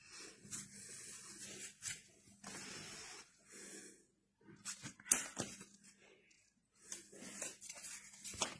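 Paper banknotes rustling and crinkling as they are handled, in irregular bursts, with a sharp crisp snap of paper about five seconds in.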